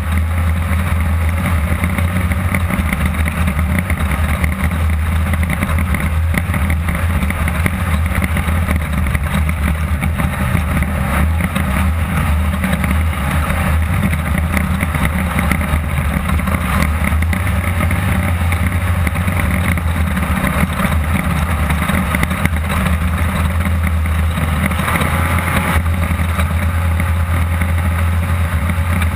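A Class 2-1600 off-road buggy's air-cooled VW 1600 engine running steadily at speed, a loud low drone with constant noise from the ride, heard from inside the car.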